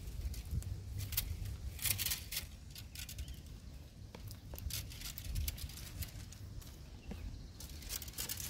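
Leaves and thin branches rustling and crackling in short irregular bursts as a young monkey climbs through a shrub, over a low steady rumble.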